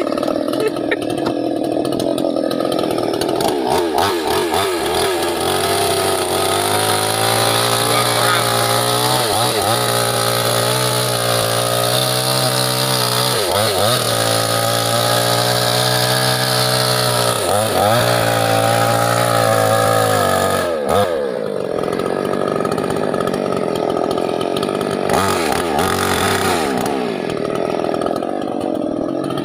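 Stihl-branded Chinese-made mini chainsaw's two-stroke engine running at high revs while cutting teak wood. The pitch dips and recovers three times as the chain loads in the cut. About 21 seconds in it drops to a lower, rougher run.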